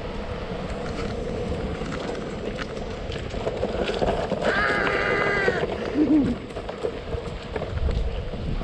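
Steady rolling noise of a board's wheels on a paved path, with wind buffeting the microphone and a steady hum underneath. About four and a half seconds in, a rider lets out a held, high shout for about a second.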